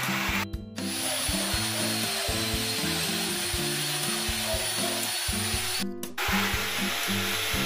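An electric drill running in long steady stretches with a high motor whine, drilling through a steel stud into the ceiling track. It pauses briefly about half a second in and again about six seconds in. Background music plays underneath.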